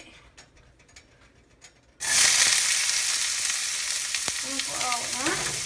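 Chopped red onions hitting a hot pan of melted butter: quiet at first, then a loud frying sizzle bursts in about two seconds in and carries on steadily.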